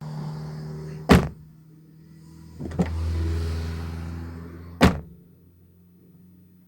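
Car power window motor running, then stopping with a sharp thunk about a second in; it starts again and runs for about two seconds before stopping with another thunk.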